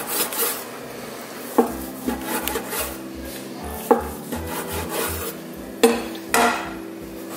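Chef's knife sawing through grilled flank steak with rasping strokes, then knocking down onto a wooden cutting board as each slice comes free, with a sharp knock about every two seconds.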